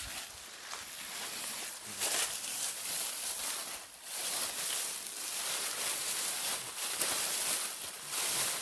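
Footsteps of two people walking through a thick layer of dry fallen leaves, an uneven crunching and rustling that swells and dips with their strides.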